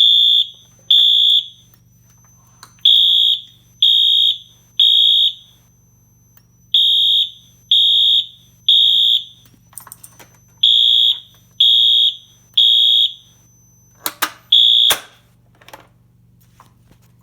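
Wheelock MT multi-tone fire alarm horn sounding loud in the temporal code-3 evacuation pattern: three high-pitched horn blasts, a pause, repeated four times. It cuts off mid-blast near the end with a couple of sharp clicks.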